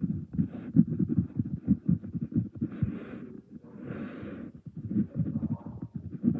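A run of dull, low thumps in quick succession, with two short hissing scrapes about three and four seconds in.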